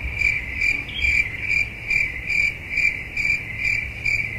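Steady, evenly timed high-pitched chirping, a little over two chirps a second, over a faint low hum.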